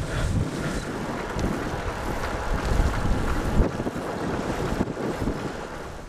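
Wind buffeting the microphone and tyre rumble from a bicycle rolling along the road at speed, a steady rough noise with a few faint ticks.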